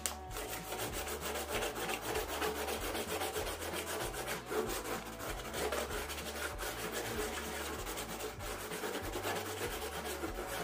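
The tip of a plastic squeeze bottle rubbed back and forth over a coarse woven mat, spreading a liquid across the weave: a continuous dry, scratchy rubbing made of many quick strokes.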